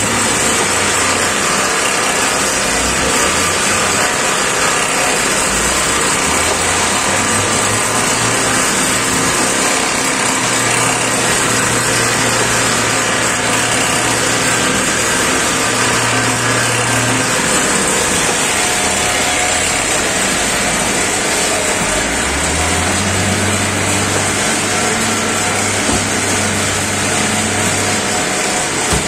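Steady, loud machinery noise of a fertilizer bagging line and its inclined belt conveyors running, with a low motor hum that comes and goes.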